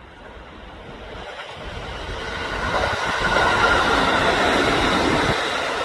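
Kintetsu electric train approaching and passing, its rushing noise swelling to a peak about three to five seconds in and starting to fade near the end, with a high steady whine over the loudest part.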